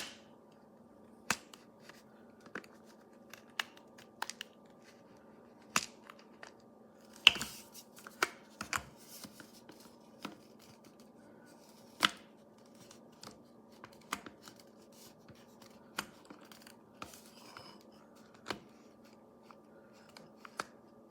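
Irregular sharp plastic clicks and scraping as the lid of a small portable electric coffee grinder is twisted and pressed on and off, failing to seat over the bean chamber. The loudest clicks come at the start, about seven seconds in and about twelve seconds in.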